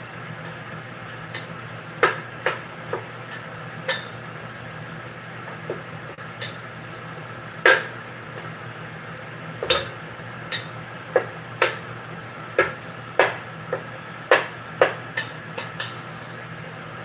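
Cooking utensil knocking and scraping against a pan at irregular intervals, about once a second, while ground beef is stirred and broken up as it browns. A steady low hum runs underneath.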